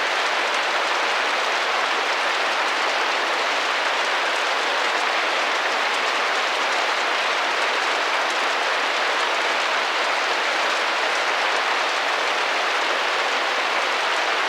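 Steady rain pattering on window glass, an even continuous hiss of drops with no change in level.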